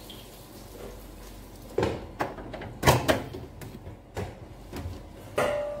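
Kitchen clatter: a handful of sharp knocks and clacks of things being handled, starting about two seconds in.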